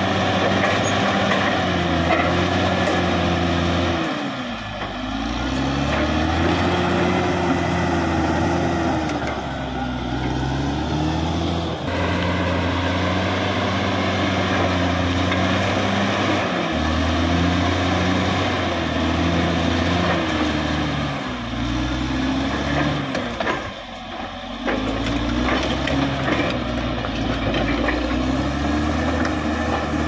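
Caterpillar D6R XL bulldozer's diesel engine running hard while it pushes brush and soil. The engine note rises and sags several times as the blade takes load and lets off, dipping most deeply twice.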